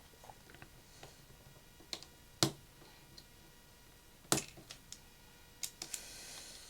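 A handful of light, scattered clicks and taps: small repair tools working on the opened iPhone 6 Plus's internal parts.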